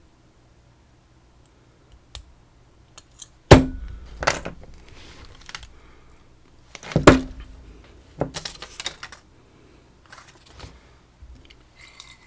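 Metal clicks, rattles and clacks from a PacLock 90A Pro padlock and lock-picking tools being handled, with two loud sharp metallic knocks about three and a half and seven seconds in.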